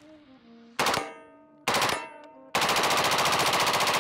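Colt M16A1 rifle firing on full auto: a short burst about a second in, a longer burst just after, then sustained automatic fire from about two and a half seconds on, at an even rapid rate.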